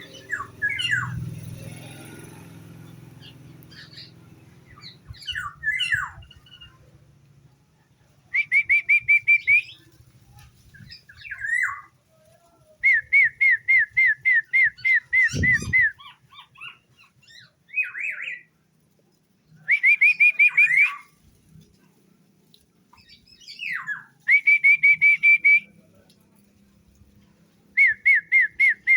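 Songbird calling in repeated bursts of about eight to ten rapid notes, each burst about a second long, with single falling call notes between them. A single low thump about halfway through.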